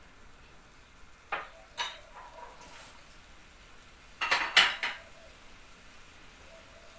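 Kitchen dishes and metal utensils clinking: two short clinks a little over a second in, then a louder clatter of several knocks past the middle, each with a brief ring.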